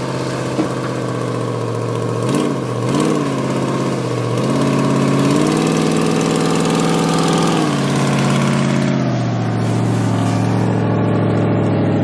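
Ford Super Duty pickup's engine pulling a livestock trailer through slush at low speed: two short revs about two seconds in, then it revs up and holds higher for several seconds before easing back near the end.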